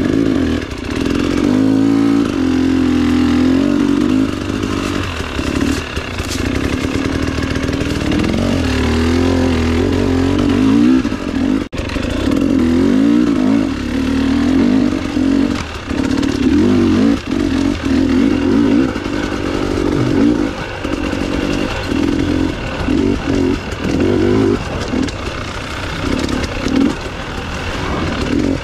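Off-road motorcycle engine running under changing throttle, its pitch rising and falling constantly, as on a dirt bike ridden along a winding single-track trail.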